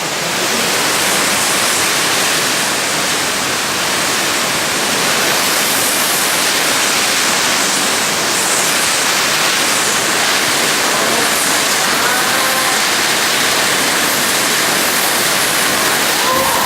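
Hurricane Irma's heavy rain and wind, a loud, steady rushing roar.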